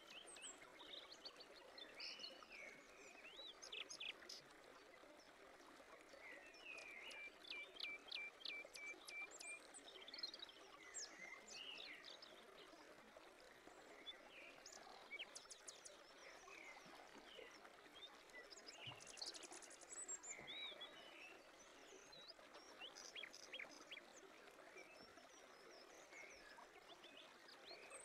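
Faint birdsong over a soft outdoor hiss: scattered chirps and short whistles, with a quick run of repeated notes about eight seconds in.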